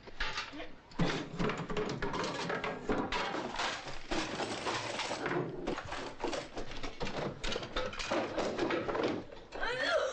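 A woman coughing over and over in a long fit of short, noisy coughs, with a brief voiced sound near the end.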